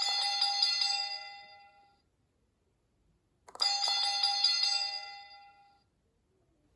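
Sound-effect reaction-button toy pressed twice, each press playing the same bell-like chime from its small speaker. Each chime rings out and fades over about two seconds, the second starting about three and a half seconds after the first.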